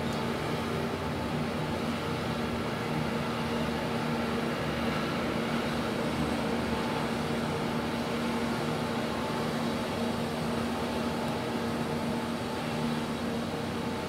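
Steady low hum of a running engine, even in pitch and level.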